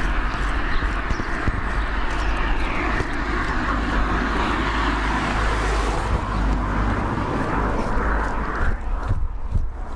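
Steady rumble of a passing vehicle, dying away about nine seconds in.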